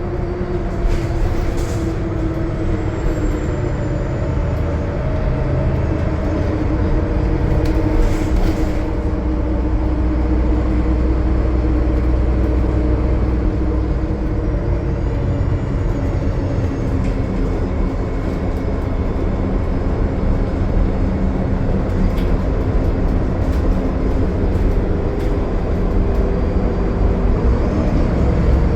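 Cummins ISL9 diesel engine of a 2020 Gillig Low Floor transit bus running at a steady pitch while cruising on the highway, over a heavy low rumble of road noise, with a few light rattles.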